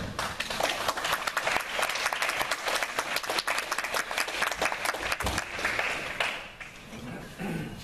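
Audience applauding, dense clapping that fades out about six seconds in. A low thud sounds about five seconds in.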